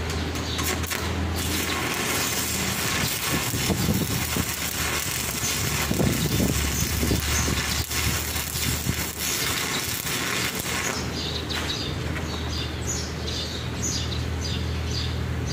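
Stick welding arc crackling and sizzling steadily as a weld bead is laid, over a steady low hum.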